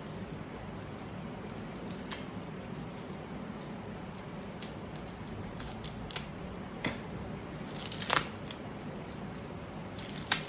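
A small plastic-wrapped package being opened by hand: scattered clicks, snips and crinkles over a steady background hum, with the loudest cluster about eight seconds in.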